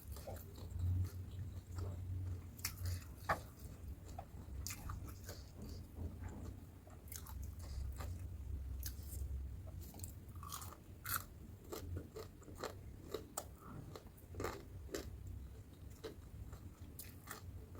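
Close-up chewing and biting of crispy battered fried tempe with raw cucumber: irregular sharp crunches and wet chewing, over a steady low hum.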